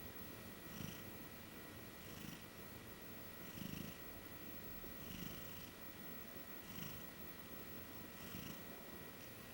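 Sleeping Maine Coon cat snoring softly, one quiet breath about every second and a half.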